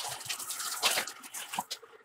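Metal lathe turning a steel bar, the cutting tool peeling off chips that crackle and tick irregularly over the machine's running noise.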